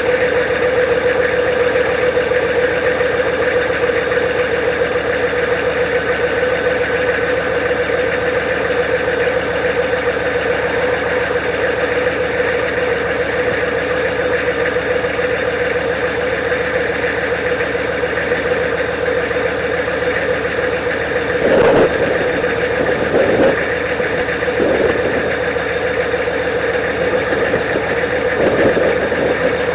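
Straight-piped 6.5 L Detroit Diesel turbo-diesel V8 running steadily, with a few brief swells in engine sound about two-thirds of the way in and again near the end.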